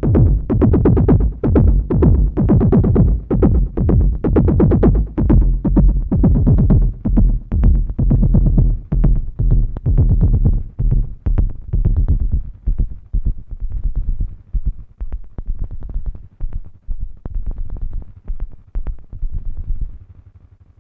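Live electronic techno played on hardware synthesizers and a drum machine: a bass-heavy, pulsing groove with a steady beat that thins out and fades away over the last eight seconds or so.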